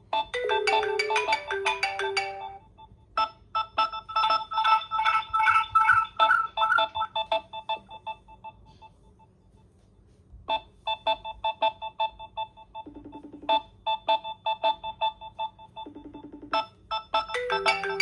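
An iPhone ringing for an incoming WhatsApp video call: a ringtone melody of quick, repeated notes in phrases, pausing briefly about three seconds in and for about a second and a half around nine seconds in before it starts again.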